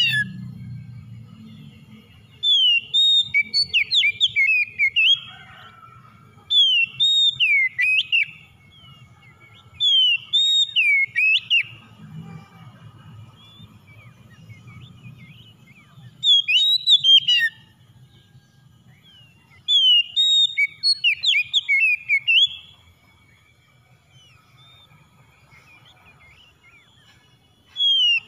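Oriental magpie-robin (kacer) singing: bursts of quick, varied whistled notes that glide up and down, each burst one to three seconds long, repeated about six times with pauses of a few seconds between.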